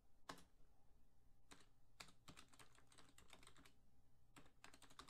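Faint keystrokes on a computer keyboard, coming in short irregular runs with pauses between.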